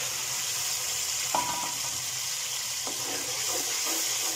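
Tomato juice sizzling in hot ghee and cumin seeds in a metal pan, a steady frying hiss as it is stirred in. A metal spoon clinks against the pan with a short ring about a second and a half in, and knocks again near three seconds.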